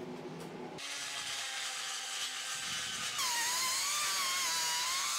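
A power grinder running, first as a steady hiss, then from about three seconds in with a whine that wavers in pitch as it grinds. This is the cracked weld being ground out of the aluminum before it is rewelded.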